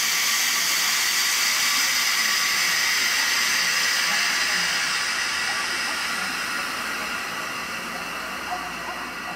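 Steady, loud hiss from a TGV high-speed trainset at the station platform, easing off a little in the second half.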